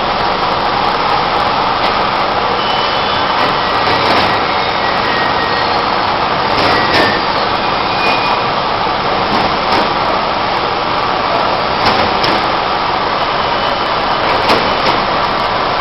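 A 3 HP industrial vacuum cleaner running steadily and loud, with scattered sharp clicks over the motor's noise.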